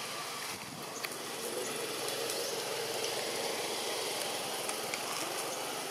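Steady outdoor background hiss: an even noise with no distinct events.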